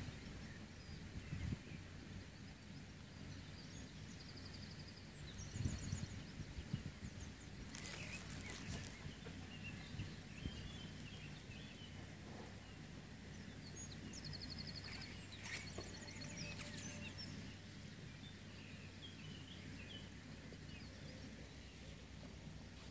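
Quiet outdoor ambience: a steady low rumble, with small birds chirping faintly now and then and giving short rapid trills about five and fifteen seconds in.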